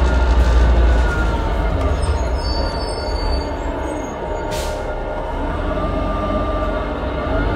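New Flyer C40LF city bus with a Cummins Westport ISL G natural-gas engine, heard from on board, running with a deep rumble and faint wavering whines. A brief hiss comes about four and a half seconds in.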